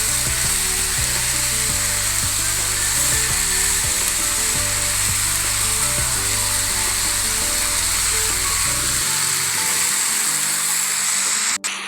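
Tapioca stir-fry with onion and grated coconut sizzling in hot oil in a pan, a steady hiss, over soft background music. The sound breaks off abruptly near the end.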